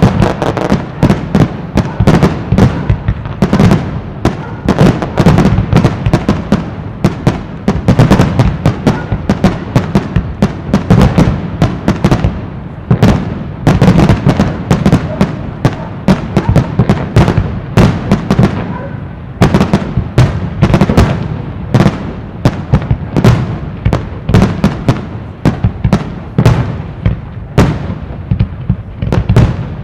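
Aerial firework shells bursting in a dense, continuous barrage, several sharp reports a second with crackle between them.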